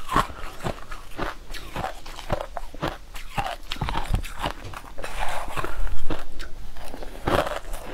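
Crushed ice crunched between the teeth close to the microphone, with a run of sharp, irregular crunches a few a second. There is a louder, denser stretch of crunching just past the middle.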